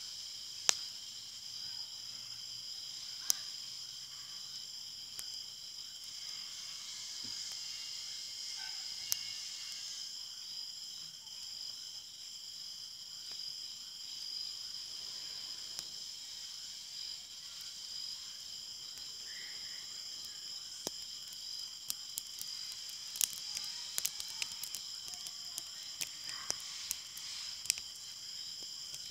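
Steady chorus of insects, a continuous high-pitched drone in several bands. Scattered sharp clicks and crackles sound over it, thickest near the end, from the small burning grass-and-twig fire or the branch being handled over it.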